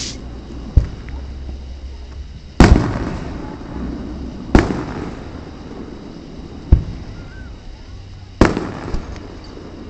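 Aerial fireworks shells going off about every two seconds: five or six sharp booms, the three loudest each trailed by a rumbling echo. Heard through a Nintendo 3DS's built-in microphone.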